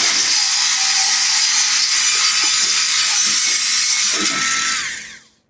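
Handheld electric grinder running on metal: a steady high hiss over a motor whine, which falls away as the tool winds down and stops near the end.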